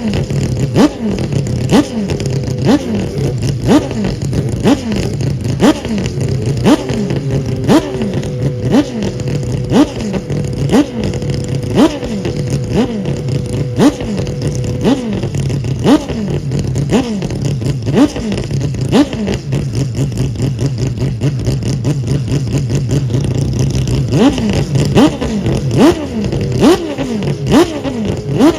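Mazda 787B's four-rotor R26B rotary engine being blipped over and over, about once a second: each blip starts with a sharp crack and falls away in pitch as the revs drop back, over a steady idle.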